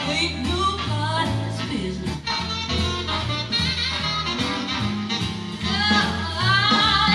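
A song with a singer and a steady bass line, played back through a Luxman C-383 preamplifier and M-383 power amplifier into Canton Ergo RCL floor-standing speakers. It grows louder near the end.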